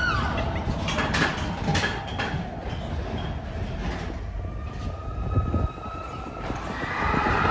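Matterhorn Bobsleds coaster car running along its tubular steel track: a steady rumble of the wheels with a few clicks. A thin wheel whine comes in about halfway and grows louder near the end.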